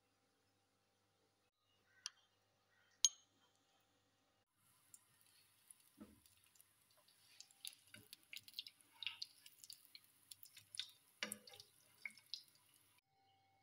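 Two sharp clicks, then burger patties frying in oil on a flat pan: a steady hiss with many small crackles and pops, and a few knocks of a metal spatula against the pan. The frying cuts off suddenly near the end.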